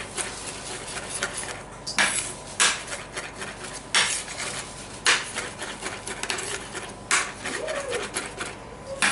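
Kitchen utensils and cookware clattering: a string of sharp knocks and clinks, with a handful of louder ones a second or so apart and lighter taps in between.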